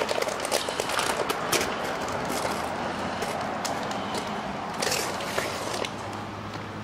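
Grease-soaked butcher paper crinkling and rustling in irregular crackles as it is peeled open from a smoked brisket.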